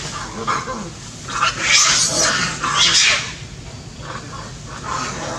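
Macaques screaming: a run of harsh, high-pitched screeches, loudest in the middle and trailing off near the end.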